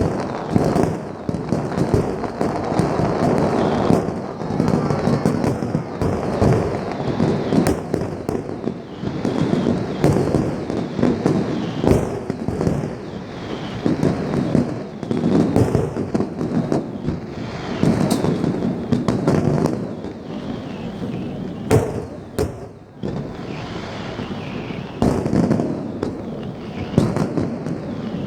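Fireworks display: a continuous barrage of aerial shell bursts, with many sharp bangs over dense crackling and rumble.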